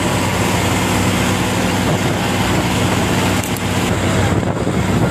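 Boat engine running steadily with a low, even drone, under a loud rushing noise of wind and water.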